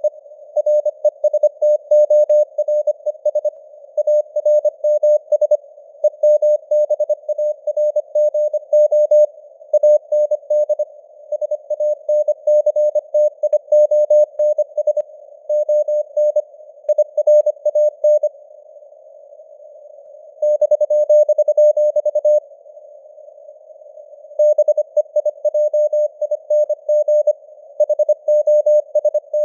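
Morse code (CW) sent at 25 words per minute: a single-pitch beep keyed rapidly on and off into dots and dashes over a narrow band of simulated radio hiss, with the signal strength rising and falling (QSB). There is one pause of about two seconds a little past the middle where only the hiss is heard.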